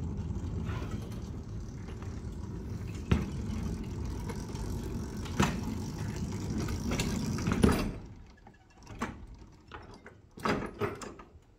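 Battery-electric ride-on miniature locomotive running on its track: the electric traction motor and chain drive hum over a rumble of wheels on rail, with a few sharp clacks. It stops about eight seconds in, and a few knocks follow near the end.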